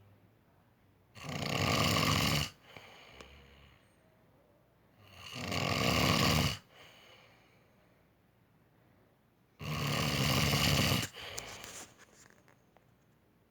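A man snoring loudly in his sleep: three long snores about four seconds apart, with quiet breathing between them.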